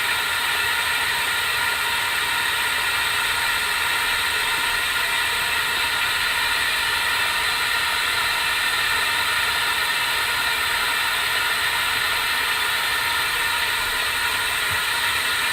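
Steady hiss of compressed-air equipment with faint whining tones, running evenly while the UV spot-repair packer is held inflated under air pressure.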